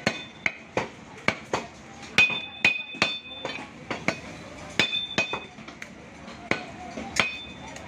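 Large butcher's knife chopping and striking beef on a wooden log chopping block: a run of sharp knocks, about two a second, several with a brief metallic ring from the blade.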